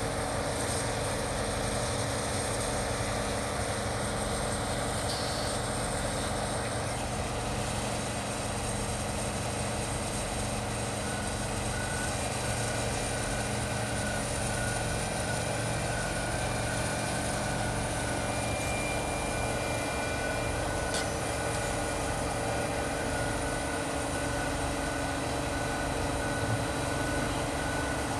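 Large engine-driven wood chipper running steadily, a constant heavy machine drone with a faint high whine coming in about halfway through.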